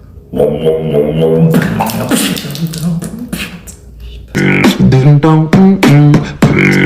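Beatboxing: a buzzing pitched vocal hum mixed with hiss, then mostly hissing mouth sounds, then from about four seconds in a quick rhythmic run of sung vocal notes.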